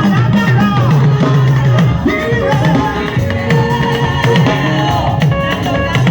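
Upbeat gospel praise band music with a drum kit and a moving bass line playing continuously.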